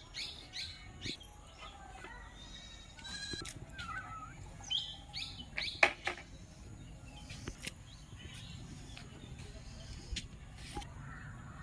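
Goats bleating a few times, with short high chirps in between and a sharp knock about six seconds in.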